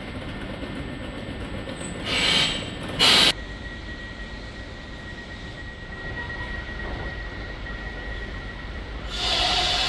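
Italo high-speed train (Alstom AGV 575) at the platform: a rising hiss about two seconds in and a louder short hiss a second later, then a steady high tone over a low rumble, with a louder rush of noise near the end.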